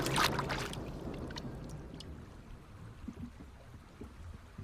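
A watery rushing gulp as a mata-mata turtle gapes and sucks in fish. It is loudest at the start and dies away within the first second, leaving a faint low underwater rumble with a few small clicks.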